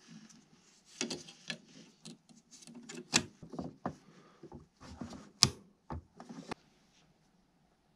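Small clicks, taps and rubbing as gloved hands handle a 1/18 scale diecast model car's painted metal body and plastic interior parts and fit them together. The sharpest clicks come about three seconds in and, loudest, about five and a half seconds in.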